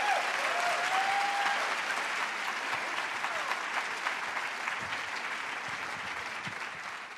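Audience applauding and cheering, fading out near the end.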